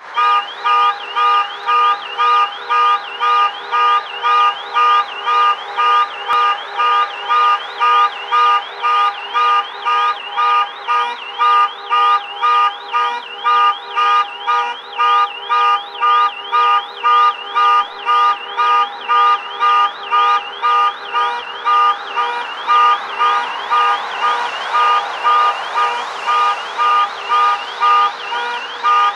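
Car alarm sounding, a pitched beep repeating evenly about twice a second with a warbling higher tone. Street noise underneath grows louder from about three quarters of the way in.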